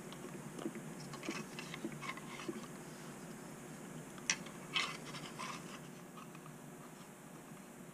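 Faint clicks and light handling noises of a plastic fish finder mount and its small screws being lined up by hand, with two sharper clicks a little past the middle.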